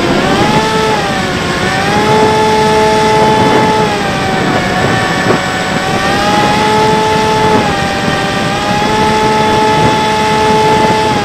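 Bixler 3 RC plane's electric pusher motor and propeller whining in flight, heard from an onboard camera with wind rushing over the microphone. The pitch dips and recovers about a second in as the throttle is eased, then holds nearly steady with small rises and falls.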